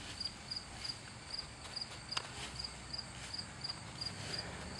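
A cricket chirping steadily, about three short high chirps a second, with one soft click about two seconds in.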